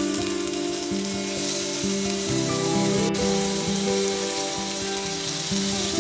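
Tomato slices sizzling in hot olive oil in a nonstick frying pan, with a steady hiss that grows stronger about a second and a half in as more slices go in. Background music plays with held melodic notes.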